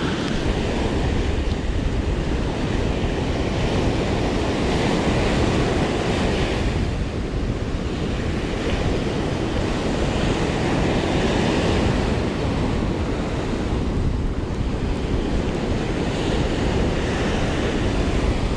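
Surf breaking and washing up a sand beach, the wash swelling louder every several seconds as waves come in, with wind buffeting the microphone.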